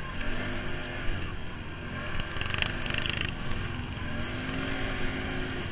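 Off-road quad engine running, its pitch rising and falling as it revs, with a short burst of noise about halfway through.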